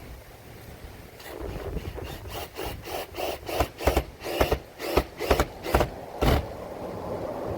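A hand tool working wood in quick, even strokes, about three a second, for roughly five seconds, ending with one louder stroke.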